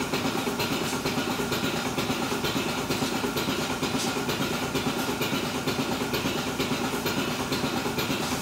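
Goat milking parlour's milking machine running: a steady drone from the vacuum system with a quick, regular hissing tick of the pulsators over it.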